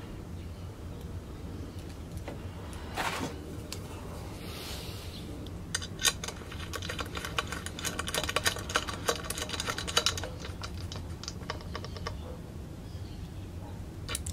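Rapid, irregular light clicks and metallic rattling as a small threaded fitting is handled and screwed into a charge pipe by hand. The clicking starts about six seconds in and dies away a few seconds before the end, over a low steady hum.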